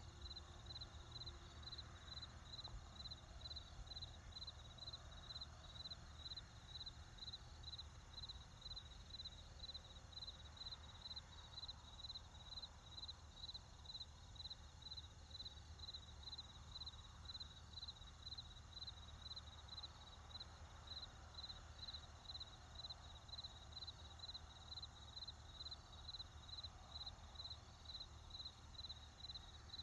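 Faint crickets chirping steadily, a high chirp about twice a second, over a low hum.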